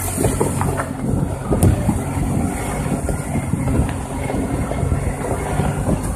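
A Jeep driving along a leaf-covered gravel trail: a steady low rumble of the engine mixed with the tyres crunching and rolling over gravel and leaves.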